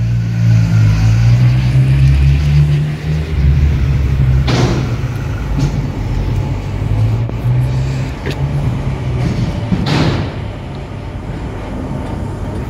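Street traffic: a motor vehicle's engine running close by as a steady low hum, with two brief passing swishes, about four seconds in and near ten seconds.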